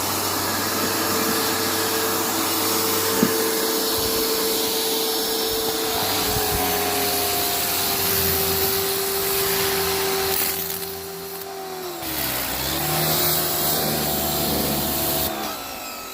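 Greenworks 2000 psi electric pressure washer running under load, its motor and pump steady under the hiss of the water spray. About two thirds of the way in the motor's pitch sags and dips, then picks back up, and near the end the spray hiss cuts off. This is the on-and-off cycling that the owner finds odd and does not think it should be doing.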